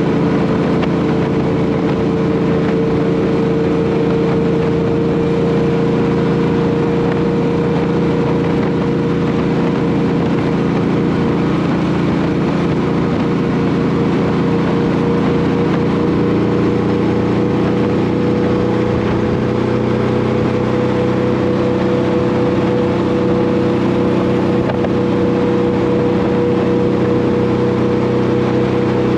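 Honda VT1100 Shadow Ace's V-twin engine running steadily at cruising speed under wind and road noise, its pitch rising slightly about two-thirds of the way through.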